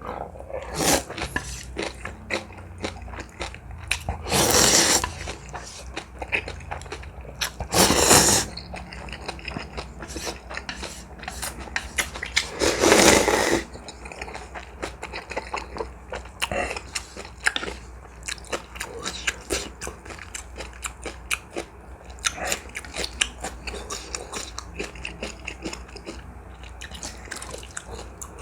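Close-miked eating of ramen noodles with dumplings and kimchi: steady chewing and crunching with many wet mouth clicks, broken by three loud slurps about 4, 8 and 13 seconds in.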